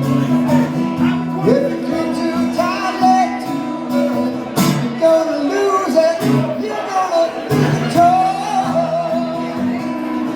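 Live acoustic guitar music, with a wavering melody line over sustained chords.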